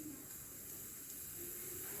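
Hawkins pressure cooker hissing softly as steam escapes, a steady hiss growing slightly louder.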